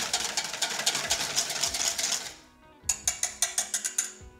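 Wire whisk beating a vinaigrette in a stainless steel bowl: fast, even clicking of the wires against the metal as oil is whisked in to emulsify the dressing. It stops about two seconds in, then starts again for over a second.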